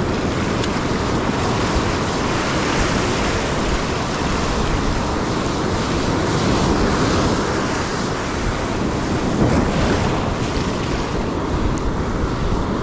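Ocean surf washing and breaking in a steady rush, with wind on the microphone.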